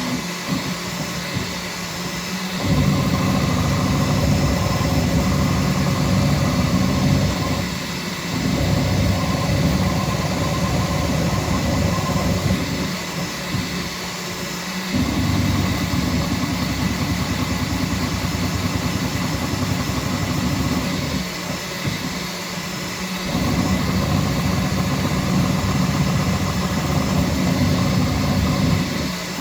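Bambu Lab X1C 3D printer running a fast print: a steady whir of fans with a low motor hum that swells and drops back every few seconds as the print head moves.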